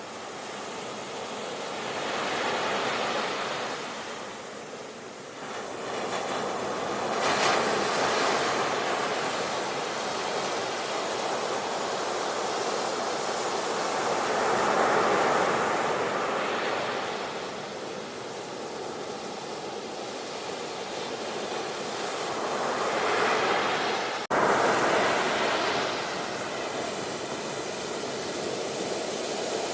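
Sea waves washing onto a shore, a rushing noise that swells and falls back several times as each wave comes in. There is an abrupt break in the sound about 24 seconds in, where the recording jumps.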